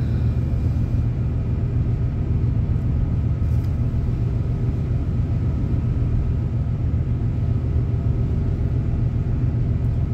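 Steady low rumble of a ship's engine with a constant drone of several hum tones, heard aboard a vessel under way.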